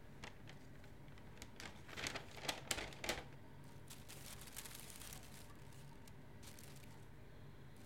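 Paper food wrapper and bag being handled: crinkling and rustling, with a cluster of sharp crackles about two to three seconds in and a softer, hissy rustle after.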